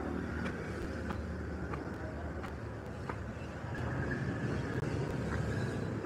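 A low steady rumble, a little stronger near the end, with light ticks roughly every half second or so, fitting footsteps on concrete as someone walks with the phone.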